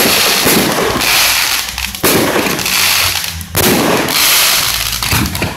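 Fireworks going off close by: loud aerial shell bursts with dense crackling. A fresh burst starts about two seconds in and another after three and a half seconds.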